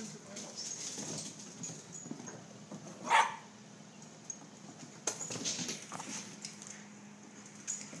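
A dog gives one short, loud bark or yip about three seconds in, with scuffling and clicking noises a couple of seconds later as it plays with a balloon.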